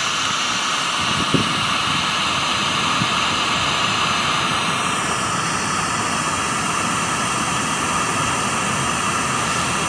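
Steady hiss of white-noise static from a smartphone ghost-box app, played through the phone's speaker; its tone shifts slightly about five seconds in.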